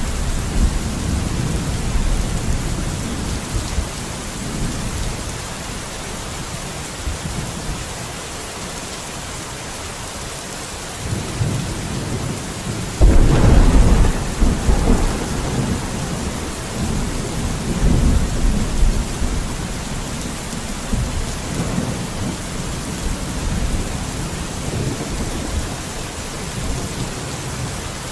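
Steady rain with rolling thunder: low rumbles throughout, and a sudden loud clap about halfway through that rumbles on for several seconds before fading back under the rain.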